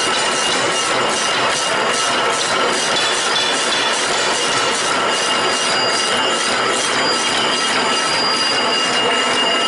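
Automatic single-strand barbed wire machine running, with a fast, even metallic clatter over a steady high whine.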